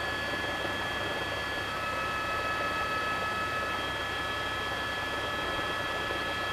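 Steady noise of a news helicopter in flight: an even hiss with several steady high tones above it.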